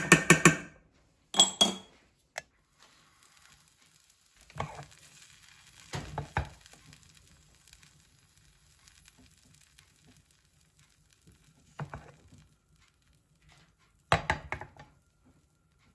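Stainless-steel saucepan and utensil clinking and knocking a few times on an induction hob, with a short clatter near the end. A faint steady hiss runs between the knocks as the soy, oil and water mixture starts to heat.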